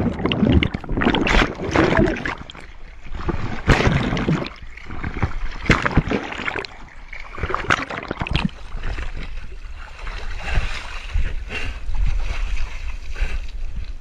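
Water splashing and churning in uneven bursts as a swimmer strokes along with a camera at the surface, the microphone dipping under and back out, so the splashes alternate with muffled underwater gurgling.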